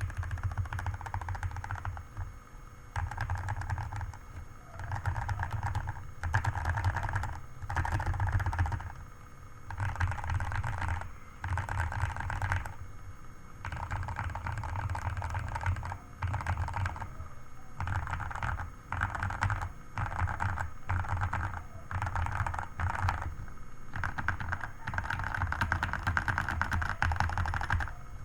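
Typing on a modded Redragon Fizz K617 mechanical keyboard with lubed Outemu Red linear switches and XDA profile keycaps, foam- and tempest-modded: rapid, even keystrokes in bursts of a second or two with short pauses between.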